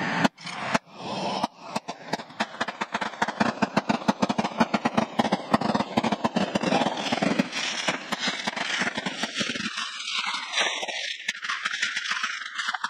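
Firecrackers going off in a rapid crackling string of pops over a hiss, the pops thinning and losing their low end about ten seconds in.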